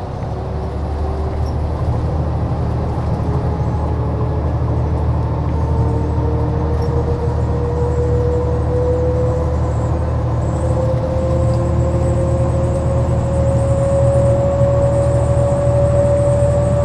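2014 New Flyer XDE60 Xcelsior articulated hybrid bus underway: its Cummins ISL9 diesel gives a steady low hum under a whine from the Allison H50 EP hybrid drive. The whine rises slowly in pitch and the whole sound grows gradually louder as the bus gains speed.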